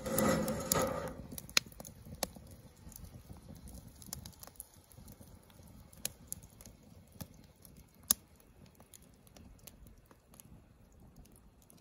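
Campfire crackling under a cast iron skillet on a metal grill grate: scattered sharp pops and snaps over a low hiss. In the first second, a louder scrape and clatter of the skillet being set on the grate.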